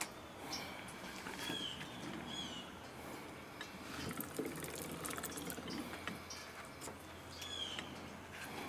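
Faint clicking of a hand-cranked clamp-on meat tenderizer as a pork cutlet is cranked through its blades, mixed with soft wet handling of the meat in a bowl of buttermilk.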